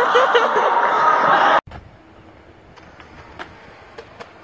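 Young people shouting and laughing in a large hall, cut off abruptly about one and a half seconds in. Then a quiet outdoor background with a few faint clicks.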